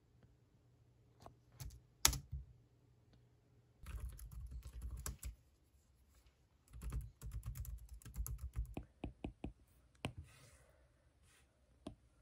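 Typing on a Logitech K380 Bluetooth keyboard: a few single key clicks, then two runs of quick key clicks with a pause between them, thinning to scattered taps near the end.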